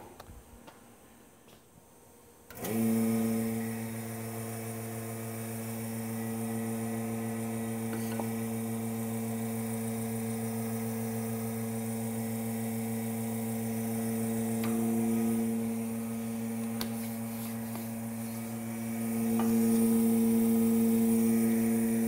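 Vacuum pump switched on about two and a half seconds in, then running with a steady hum as it pulls vacuum on a clamping jig; the hum grows louder a few seconds before the end.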